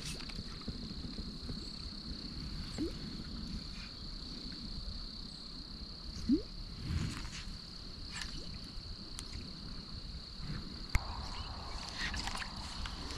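Quiet outdoor pond-side ambience with a steady high-pitched whine throughout, a few soft handling or water sounds, and one sharp click about eleven seconds in.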